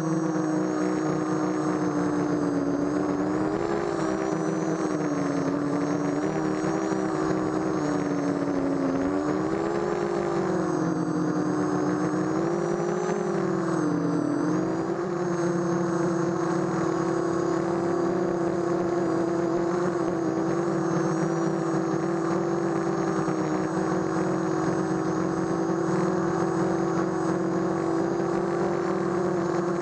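The 18-11 2000kv brushless motors and 5030 propellers of a micro quadcopter whirring in flight, picked up by a GoPro mounted on the frame. The pitch wavers up and down with the throttle for about the first fifteen seconds, then holds steady, with a thin high whine above it.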